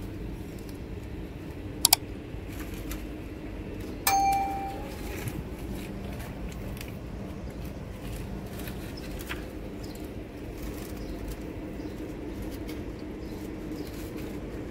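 A sharp click about two seconds in, then a single metallic clang about four seconds in that rings briefly and fades, over a steady low hum.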